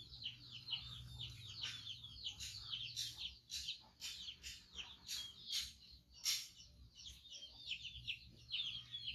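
Birds chirping without pause, a dense run of short, high, falling peeps, with scattered clicks among them.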